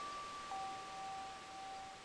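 Soft chime tones ringing out slowly, a higher one struck just before and a lower one about half a second in, over a faint steady hiss.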